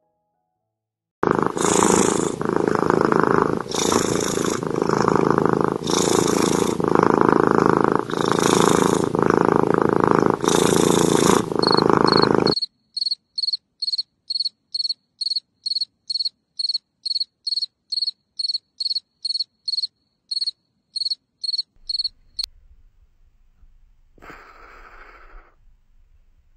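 A loud, even rumble that swells about every two seconds and stops abruptly. It is followed by a field cricket chirping in a steady rhythm: short high-pitched chirps, about two and a half a second, for roughly ten seconds.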